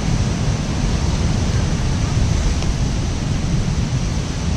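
Steady wind buffeting the microphone with a low rumble, over the continuous wash of surf breaking on the shoreline rocks.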